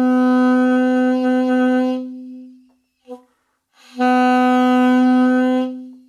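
Saxophone playing the same steady note twice, about two seconds each. Each time the note starts with a normal full tone, then thins and dies away as the player tightens and bites on the mouthpiece until no air gets through: how too much embouchure pressure chokes the sound.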